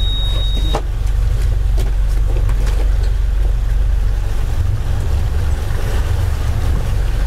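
Motor cruiser's inboard engines running at low manoeuvring speed, a steady low rumble heard from inside the cabin. A short high electronic beep ends under a second in, and there are a few light knocks.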